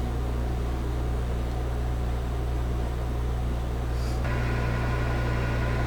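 Steady low hum under an even hiss, with a higher steady whine joining about four seconds in.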